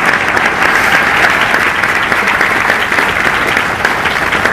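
Audience applauding, a dense, steady clapping that slowly eases off toward the end.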